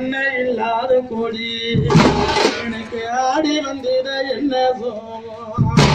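Thappu frame drums beating in a short loud burst about two seconds in and again near the end, with a melody of held, wavering notes running between them.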